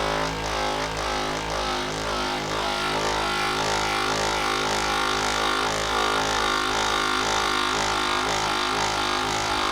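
Small electric motor running steadily at one pitch, with a soft regular pulsing about one and a half times a second.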